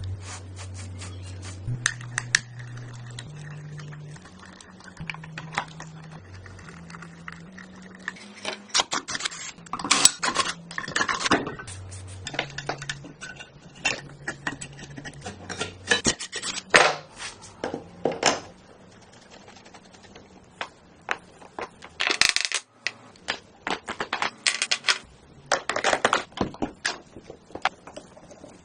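Hard objects clicking and clattering in quick irregular runs, like tools being handled during a repair, over a faint low tone that steps up and down in pitch about once a second.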